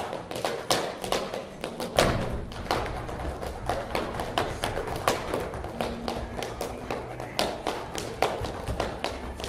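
Footsteps of many people on a stage floor: high heels clicking and shoes thudding in an irregular patter of several steps a second, with a heavier thud about two seconds in.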